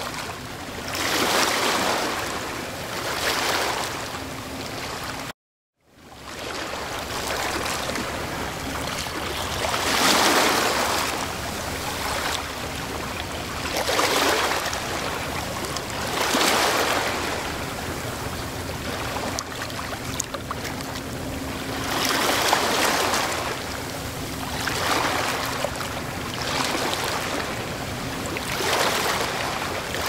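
Waves washing onto a shore, each one swelling and fading over a few seconds. A brief break of silence cuts in about five seconds in.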